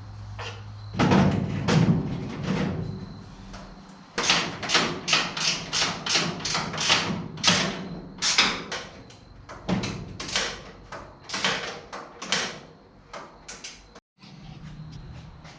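A series of sharp knocks, about two a second, after a louder stretch of clattering near the start.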